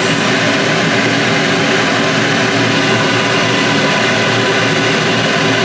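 A loud, steady mechanical drone that holds unchanged throughout.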